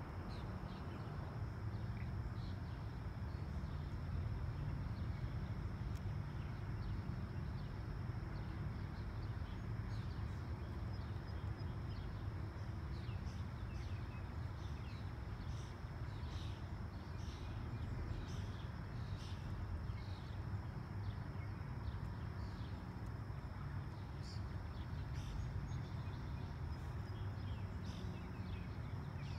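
Outdoor ambience: birds chirping in many short, scattered calls over a steady low rumble and a thin, steady high-pitched whine.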